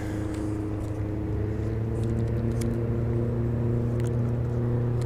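Steady low hum of a boat motor, with a few faint clicks.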